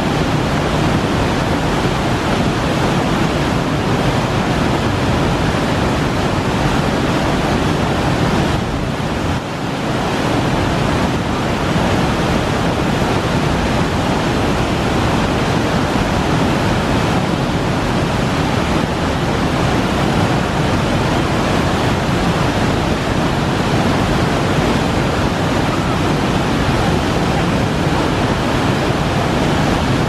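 Waterfall rushing steadily: white water pouring down through a rocky gorge. The rush drops off briefly about nine seconds in.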